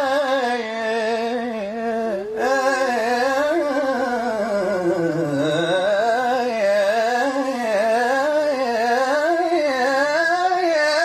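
A man singing a long, ornamented melismatic line in an Arabic devotional song, the pitch wavering and winding on sustained vowels without clear words. There is a short break for breath about two seconds in.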